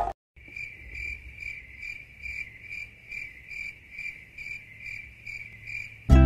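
Cricket chirping: a high, steady trill pulsing about two to three times a second, cutting off abruptly near the end.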